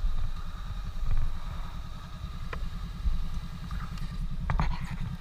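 Honda CB500X's parallel-twin engine running at low revs with an even low pulse, and a few light clicks near the end.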